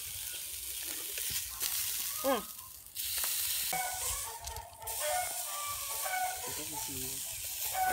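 Meat sizzling on a brick slab under an electric hot-air welding gun, a steady high hiss that fades briefly twice.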